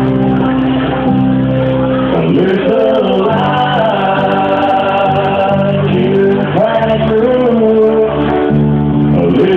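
Live band music with a sung voice over sustained chords.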